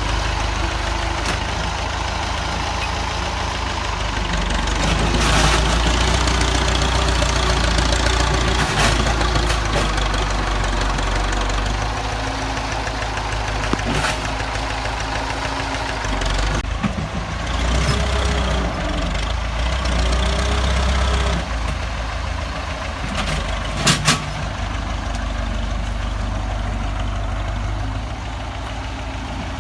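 Tractor engine running steadily, with swells in level and a few sharp clacks, the loudest a quick double clack late on.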